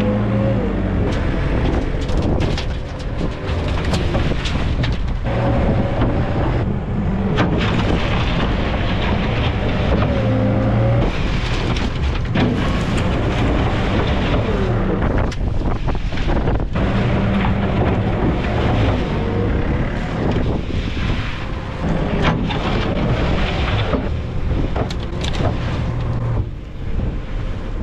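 Tractor diesel engine working under load as its front-loader bucket digs into a dung heap and tips into a muck spreader. The engine pitch rises and falls as the loader works, with knocks from the bucket and wind on the microphone.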